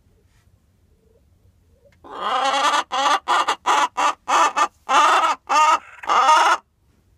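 A red-brown hen squawking loudly: a run of about nine harsh calls over four to five seconds, starting about two seconds in, the first the longest. It is a laying hen's protest at the nest box she wants being occupied by another hen.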